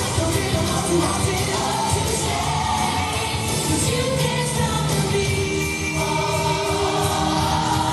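A song with singing plays continuously as the music for a stage dance routine.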